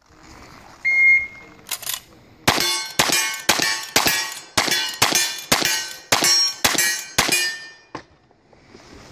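A short electronic shot-timer beep, then a lever-action rifle fires ten shots about half a second apart, each followed by the ringing clang of a steel target being hit. A light knock comes just after the beep, and a small click near the end.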